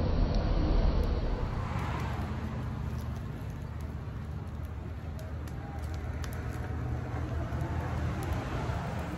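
Open wood campfire burning with a few sharp crackles, over a steady low rumble that is loudest in the first second.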